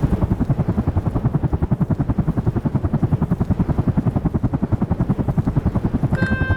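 Helicopter rotor sound effect: fast, even chopping that holds steady, with pitched musical notes starting in just before the end.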